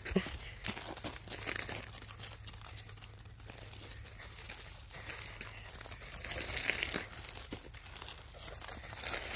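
Steps and small hooves crunching and scuffing on gravel, an irregular run of short crunches with a sharper knock just after the start.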